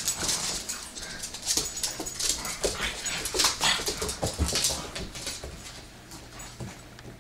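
A bloodhound puppy and a pug play-wrestling: dog whining mixed with quick clicks and scuffles of claws on a hardwood floor, busy at first and dying down near the end.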